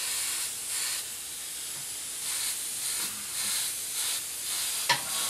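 Iwata Eclipse CS airbrush spraying paint at about 25 to 30 psi, hissing in short, uneven bursts. A sharp click comes near the end.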